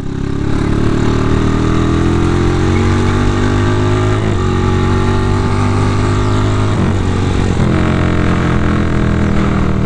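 Honda Tiger single-cylinder motorcycle engine running through a CJDW aftermarket racing muffler while riding. Its note climbs steadily in pitch and drops twice, about four and seven seconds in, as it shifts up through the gears.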